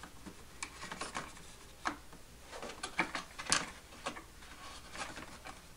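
Irregular small clicks and taps of a wire Z-bend push rod being worked into a model airplane's control horn by hand.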